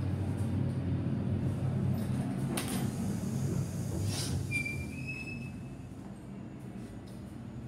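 Dover hydraulic elevator running: a low rumbling hum that drops off about halfway through. Two sharp knocks and a brief high squeal come near the middle.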